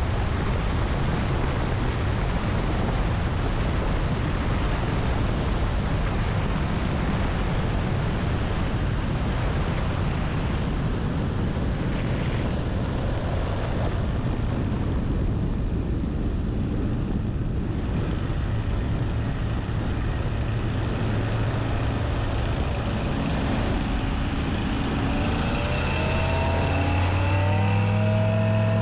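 Floatplane's engine running under a steady rush of wind noise as it glides down low over calm water to land. About twenty-five seconds in the rush eases and the engine's drone comes through plainly, with a brief rise in pitch.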